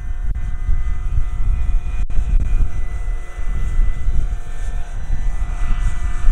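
Electric Vario Dauphine AS 365 scale model helicopter hovering low and setting down, with the steady whine of its electric motor and rotor over a heavy low rumble.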